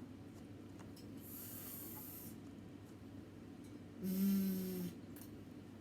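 A voice sounding isolated phonics speech sounds: a soft hissed consonant, like a whispered "sh" or "s", then about four seconds in a louder buzzing voiced consonant held at one steady pitch for just under a second. There is a faint steady hum underneath.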